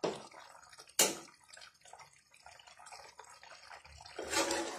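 A spatula stirring soybean chunks and potatoes through a thick curry gravy in a metal pan. It gives a sharp knock against the pan about a second in, then softer wet scraping.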